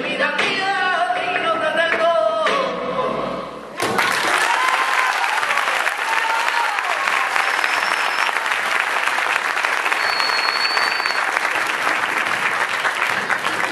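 A flamenco song with singing ends a little under four seconds in, and audience applause takes over, with voices calling out early in it and two short high whistles.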